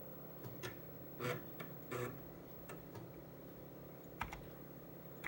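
Irregular keystrokes on an Amiga A1000 keyboard, about ten clicks spaced unevenly, over a steady low hum from the computer.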